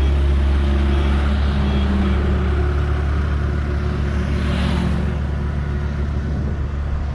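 Steady low motor-vehicle engine rumble, with a vehicle hissing past about four and a half seconds in.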